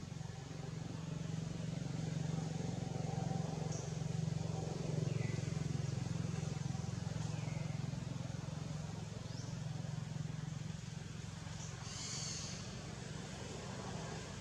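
A steady low motor hum, like a running engine, with a few short faint chirps above it.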